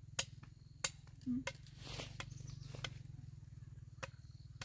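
About half a dozen sharp knocks at uneven intervals, roughly one every half second to second, over a steady low hum.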